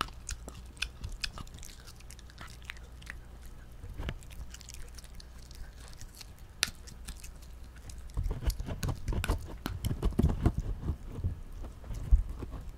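A small dog chewing a dried pig ear close to the microphone: sharp crunches and clicks of teeth on the tough chew. From about two-thirds of the way in, the gnawing grows louder, with low thuds mixed in.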